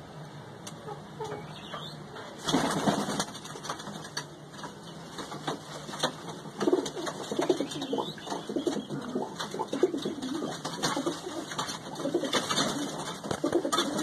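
Domestic pigeons cooing in a loft, repeated low calls that grow busier about two seconds in, with scattered short clicks.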